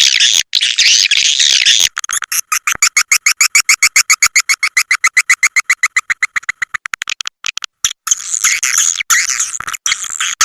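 Swiftlet calls from a lure recording used to draw swiftlets to nest houses. A dense twittering chatter gives way about two seconds in to a fast, even train of sharp chirps, about eight a second, that quickens near its end. The dense chatter returns near the end.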